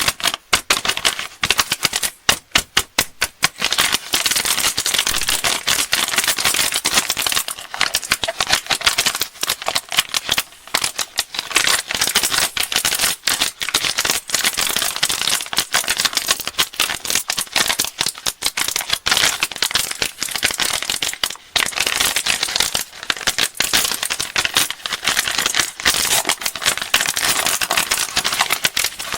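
Plastic candy wrappers crinkling and crackling as sweets are handled and unwrapped: a continuous run of crisp rustles and clicks with brief pauses.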